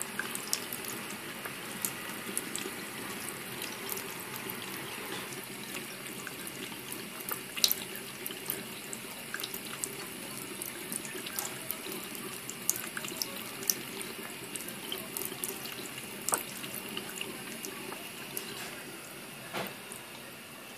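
Bathroom tap running steadily through a whale-shaped drinking-fountain attachment, its stream splashing into the sink basin. Over it come frequent small, irregular clicks and splashes as a cat laps at the stream.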